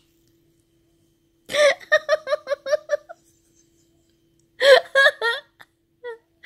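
A woman laughing in two bursts of quick, high-pitched giggles, the first about a second and a half in and the second a few seconds later.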